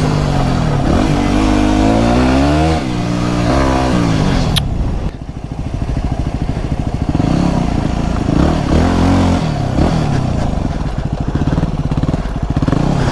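Motorcycle engine accelerating, its pitch climbing and then dropping at each gear change, then running at lower revs with a few short blips of the throttle. One sharp click about four and a half seconds in.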